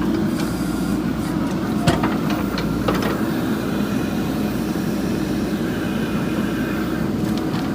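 JCB 3DX backhoe loader's diesel engine running steadily under work, with two sharp knocks about a second apart near the start.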